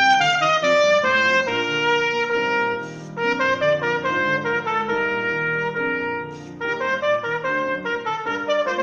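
Trumpet playing a fast concert étude of quickly changing notes, with piano accompaniment. The line breaks off briefly twice, about three and six and a half seconds in.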